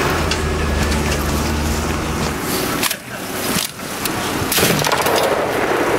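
A Mercedes-Benz G-wagen military vehicle's engine running steadily for about two seconds, then dropping out. A few sharp cracks follow about halfway through, short bursts from an MG3 machine gun firing at the targets.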